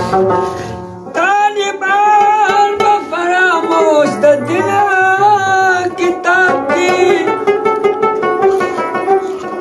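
A man singing a Pashto ghazal to rabab accompaniment. The plucked rabab plays alone at first, and the voice comes in about a second in, with ornamented, bending melodic lines over the rabab's plucking.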